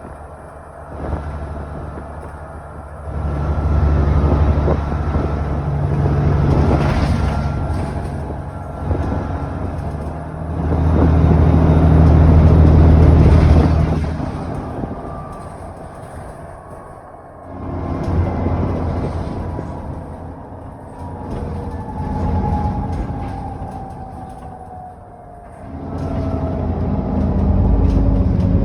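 ADL Enviro400 double-decker bus engine heard on board, pulling hard in repeated surges and easing off between them. A thin whine falls slowly in pitch through the second half.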